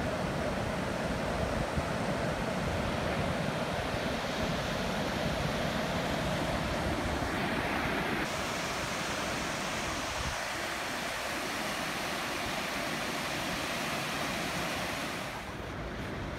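Steady wash of ocean surf breaking on a sandy beach, with wind rumbling on the microphone; the hiss of the surf drops away near the end.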